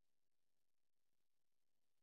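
Near silence: only a faint, even hiss with no distinct sounds.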